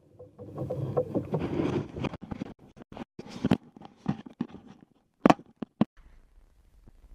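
Camera handling noise after a rush of wind and water on the microphone: a run of clicks, knocks and rubbing as the camera is picked up and moved, with three sharp knocks close together about five seconds in.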